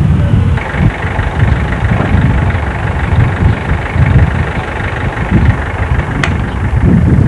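Wind buffeting the camcorder's microphone in uneven gusts over a steady rumble, with one brief sharp click about six seconds in.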